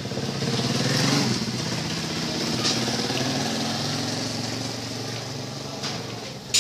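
A motor vehicle engine running steadily, swelling about a second in and then slowly fading.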